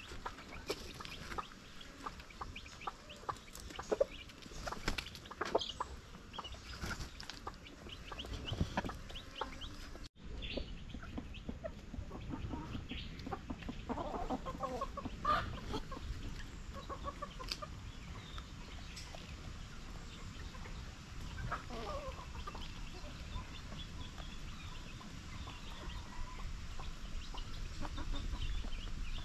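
Small flock of chickens foraging: sharp clicks and scratches of pecking in the dirt for the first ten seconds, then soft, low clucking after a brief break.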